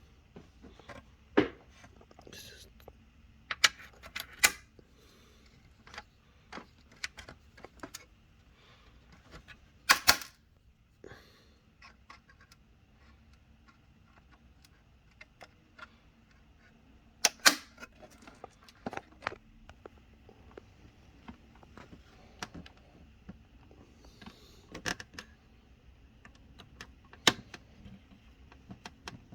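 Scattered clicks and sharp taps of small metal screws and a screwdriver being handled while screwing a DVR's cooling fan back into its metal case, with a few louder knocks among them.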